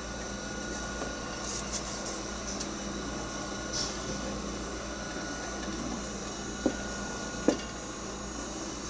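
A wooden spoon stirring thick strawberry-rhubarb jam at a slow boil in a stainless steel pot, rubbing and scraping, with two short sharp knocks about two-thirds of the way through. A steady hum runs underneath.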